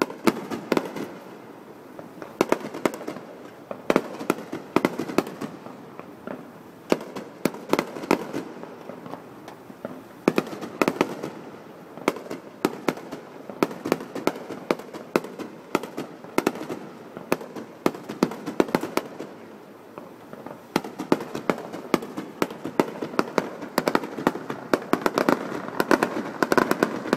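Aerial fireworks display: a continuous run of shell bursts and crackling reports, many sharp bangs over a steady noisy rumble. The bangs come thicker near the end.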